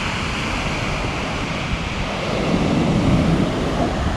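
Surf washing in on a beach, with wind buffeting the microphone; a wave swells up about halfway through.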